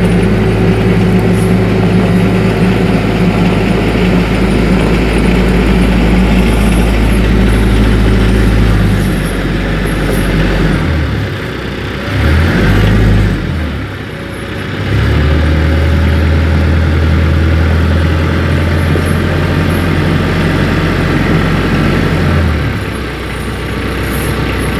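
A TYM 474 compact tractor's diesel engine runs steadily while the tractor drives. Its note changes and dips between about nine and fifteen seconds in, then holds steady again before dropping off near the end.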